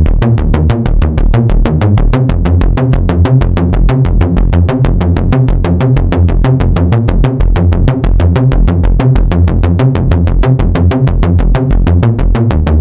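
Electronic background music with a fast, steady drum-machine beat and heavy bass.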